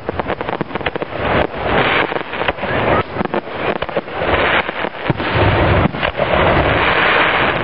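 Fireworks display: a rapid barrage of aerial shells bursting, with many sharp bangs in quick succession. From about five seconds in it turns into a denser, more continuous crackle.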